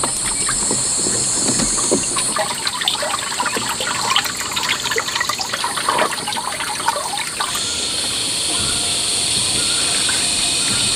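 Water splashing and trickling in irregular bursts, settling down after about seven seconds, over a steady high-pitched drone.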